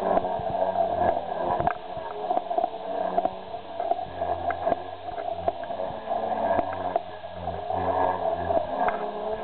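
Electric Protos 500 RC helicopter flying overhead: rotor blades and motor whirring, the sound swelling and dipping as it manoeuvres, with scattered sharp clicks.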